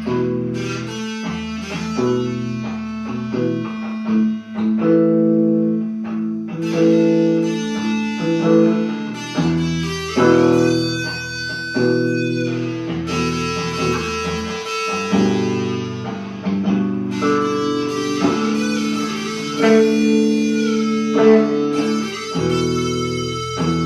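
Instrumental blues played on guitar, with sustained notes and chords over a bass line.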